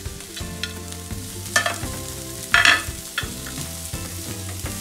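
Chopped bell peppers being scraped off a plate into a frying pan and stirred with a plastic spatula while the vegetables sizzle in a little oil, with small scrapes throughout and two louder scrapes about one and a half and two and a half seconds in.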